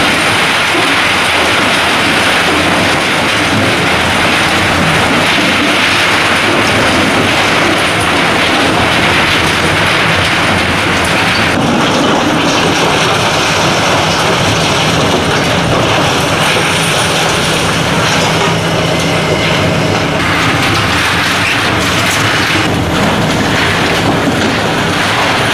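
High-reach demolition excavator working: its engine and hydraulics run loudly while the crusher on the boom breaks up concrete and steel and rubble pours down, making a continuous dense clatter. About halfway through the sound changes and a steady high whine runs for several seconds.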